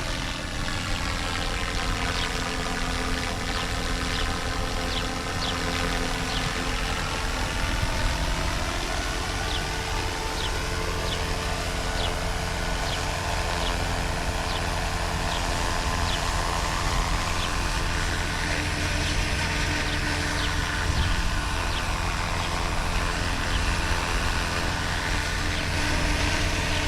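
A small aircraft flying low overhead, its engine droning steadily while the tone sweeps down and back up as it passes.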